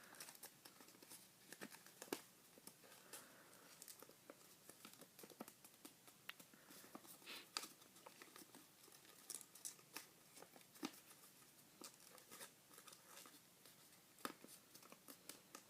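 A sheet of origami paper being folded and creased by hand: faint, scattered crinkles and soft ticks of the paper.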